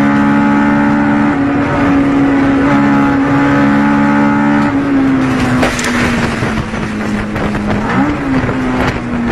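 Race car engine held at high revs, heard from inside the stripped cabin. About five seconds in, the note drops a little and a loud rough noise of tyres and scraping rises over it, with a sharp knock about a second later, as the car goes off.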